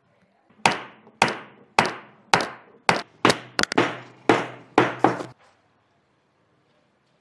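About ten sharp hammer blows on wood, roughly two a second, stopping about five seconds in.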